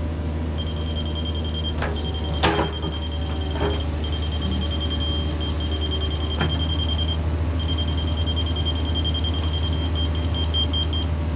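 Kubota KX71 mini excavator's diesel engine running steadily under work while a high warning alarm beeps in rapid pulses with short breaks, as on a machine traveling or backing. A few metal clanks sound in the first six or seven seconds, the loudest about two and a half seconds in.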